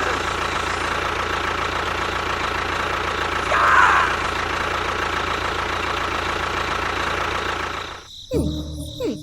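A small engine or motor running steadily, with a brief louder sound about a third of the way in; it cuts off abruptly about a second before the end.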